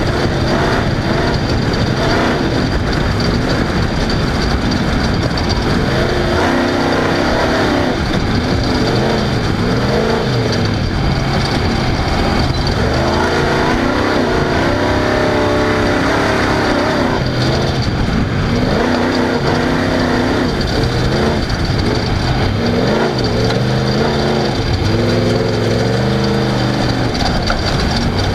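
Off-road race car engine running hard, its pitch rising and falling every few seconds as it revs up and drops back.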